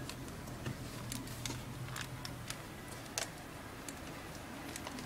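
Light, irregular plastic clicks and ticks as the HP Pavilion m6's front screen bezel is pressed and snapped back onto the display lid. The loudest click comes about three seconds in. A faint low hum runs through the first half.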